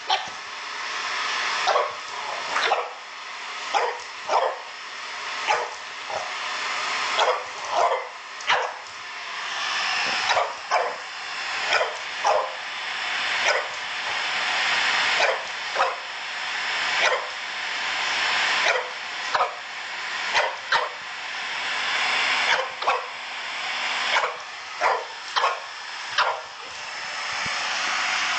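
A French bulldog barking over and over, short loud barks about a second apart, against the steady hiss of a running hair dryer that swells and fades in waves.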